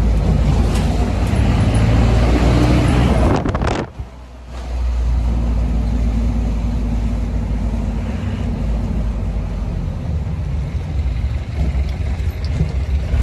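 Modified Mahindra jeep's engine and loud aftermarket exhaust droning under way. The sound drops away suddenly for about a second some four seconds in, then picks up again and runs steadily.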